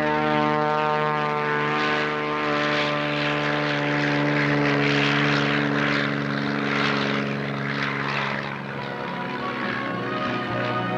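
Propeller airplane engine running at a steady pitch, a constant drone that eases slightly in level near the end.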